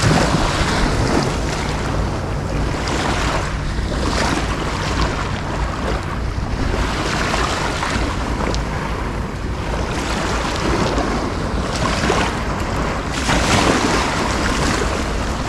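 Small waves washing on the shore at the water's edge, swelling and falling every few seconds, under heavy wind rumble on the microphone.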